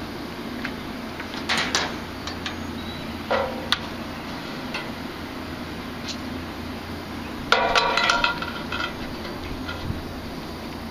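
Metal clanking with a ringing edge over a steady low hum: a few separate clinks, then a louder run of several clanks and rattles about seven and a half seconds in.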